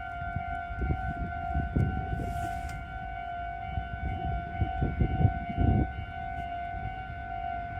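Electronic warning bell of a Japanese railway level crossing sounding continuously as one steady repeating tone, with irregular low rumbles underneath.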